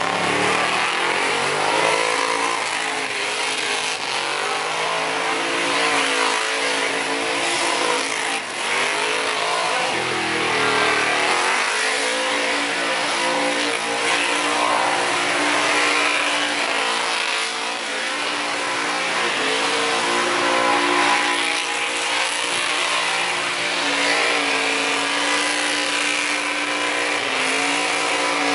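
Holden one-tonne ute's V8 held at high revs through a burnout, the spinning rear tyres screeching under the engine. The revs drop briefly about eight seconds in and climb back up.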